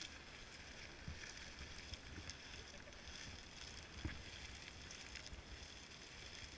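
Faint, steady bubbling of a small geyser's boiling pool as it vents steam, with a few soft thumps about one, two and four seconds in.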